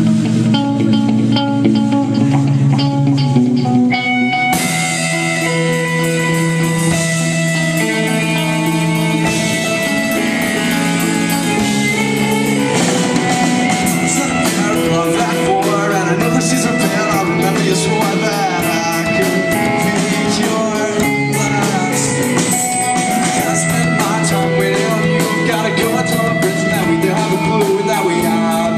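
Rock band music: guitar on its own at first, the full band coming in about four seconds in, and drums hitting steadily from about halfway, with singing.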